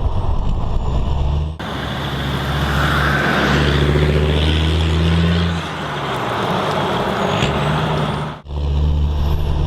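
Land Rover Defender 90 Td5's five-cylinder turbodiesel engine running, heard through its exhaust. The sound cuts abruptly twice, and the middle stretch is noisier, with the engine note rising a little and then dropping back.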